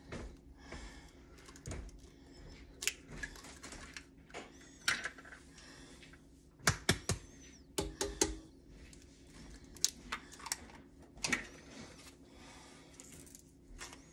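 Eggs being cracked against a stainless steel stand-mixer bowl and handled over it: a run of sharp, irregular clicks and taps, the loudest clustered a little past the middle.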